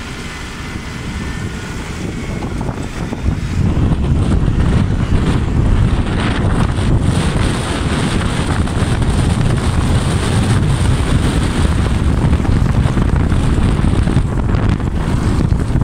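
Wind buffeting the microphone: a loud, low rumble that grows stronger about three and a half seconds in and then stays up.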